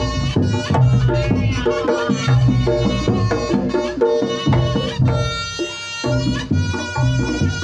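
Reog Ponorogo gamelan music: kendang drums beat a busy rhythm under a reedy slompret melody that bends up and down, holding one long note about five seconds in.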